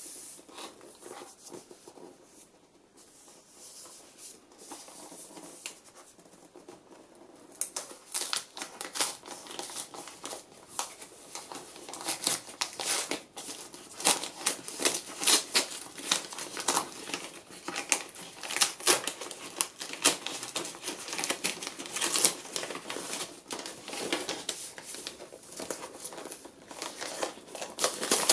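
Paper gift wrapping being peeled off at its tape and unfolded from a cake box: crinkling and rustling, soft at first, then dense, loud crackling from about seven seconds in.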